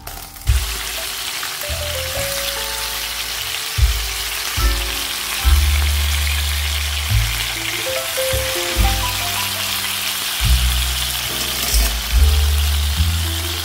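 Chicken thighs sizzling in butter in a nonstick frying pan, a steady high hiss of frying that starts about half a second in. Background music with a bass line plays under it.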